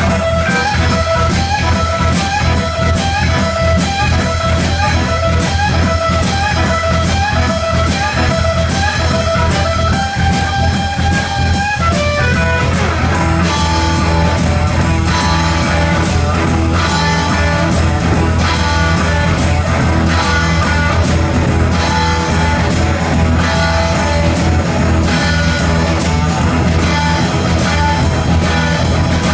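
Live blues-rock band playing an instrumental passage: solid-body electric guitar repeating a short riff over bass guitar and drum kit. About twelve seconds in the guitar holds a note and slides down, then moves on to a different part.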